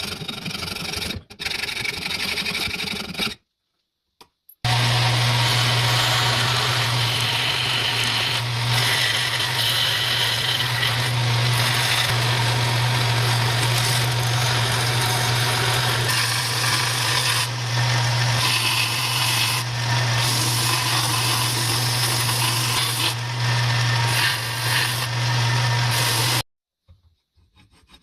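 Power sander or grinder abrading wood or steel: a steady motor hum under continuous gritty rasping that runs for about twenty seconds and stops abruptly. It follows a shorter burst of rasping.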